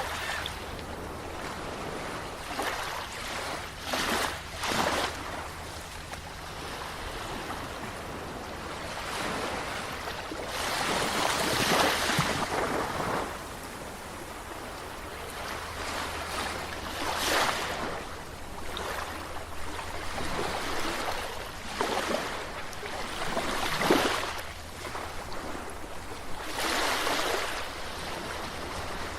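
Sea waves washing in and breaking on the shore, a louder surge every few seconds over a constant wash of water, with a steady low rumble beneath.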